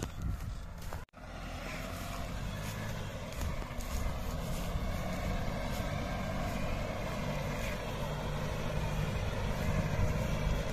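Diesel engine of a New Holland TD590 tractor running steadily, the sound cutting out for an instant about a second in.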